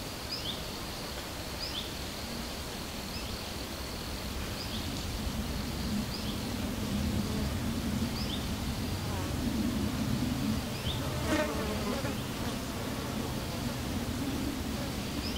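A flying insect buzzing close by, the drone swelling and wavering as it moves about and growing louder from about five seconds in. Short high chirps repeat about once every second or so, and a single sharp click comes about two thirds of the way through.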